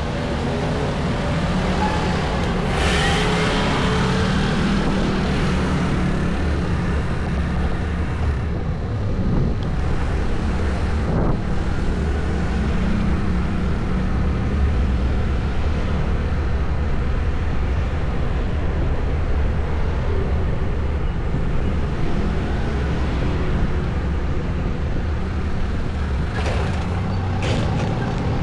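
Steady low rumble of wind buffeting the microphone on a moving bicycle, with motor traffic passing now and then, most noticeably about three seconds in and near the end.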